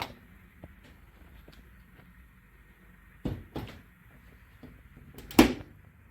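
A few knocks and clunks of something being handled: a click at the start, two knocks close together about three seconds in, and a heavier thump about five seconds in.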